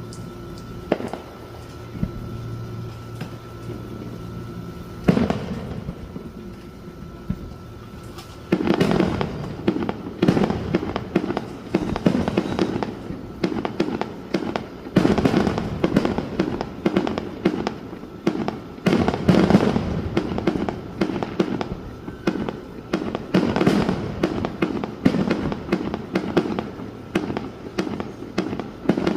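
Fireworks display: a few separate bangs at first, then from about eight seconds in a dense, rapid barrage of bangs and crackling that keeps on.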